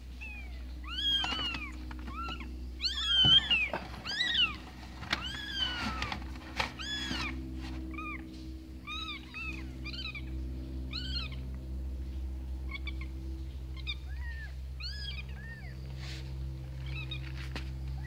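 Newborn kittens, eyes just opened and not yet walking, mewing: many short, high-pitched, arching cries, crowded and loudest in the first few seconds, then sparser. A steady low hum runs underneath.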